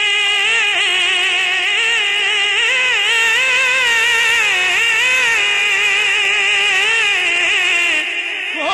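A male naat reciter singing one long, wavering melismatic note without words, full of vibrato. The note fades shortly before the end and a new phrase starts with a rising slide.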